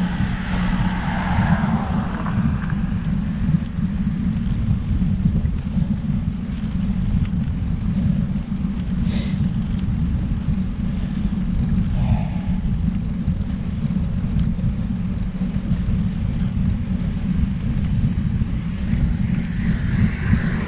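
Wind rumbling steadily on the microphone of a camera riding along on a road bike climbing a hill. A couple of brief sharp clicks come through, one about half a second in and one about nine seconds in.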